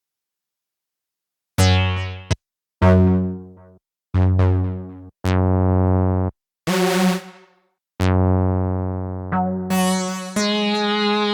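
Arturia Analog Lab V software synthesizer played from a keyboard. After about a second and a half of silence come a string of separate notes or chords, each with a different timbre: some die away like a piano, some are held steady, and one is bright and hissy. Near the end the notes come faster and overlap.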